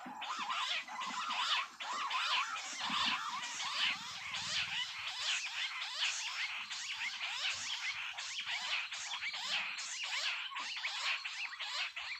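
A dense chorus of rapid, overlapping chirping animal calls that runs on without a break.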